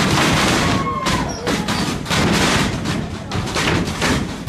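Wrestling match sounds: bodies hitting the ring canvas and ropes amid a small crowd's clapping and shouting, a loud, dense run of sharp hits.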